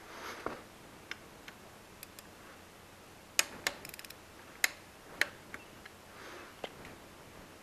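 Click-type torque wrench and its ratchet tightening the front axle bolts of a KTM 500 EXC. A few sharp single clicks, a quick run of small ratchet clicks about four seconds in, then more single clicks, the wrench clicking as a bolt reaches its set torque.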